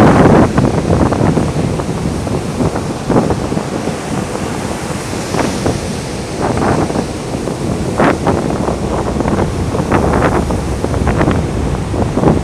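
Strong, gusty wind buffeting the microphone despite its furry wind muff, with irregular blasts, over the steady wash of surf.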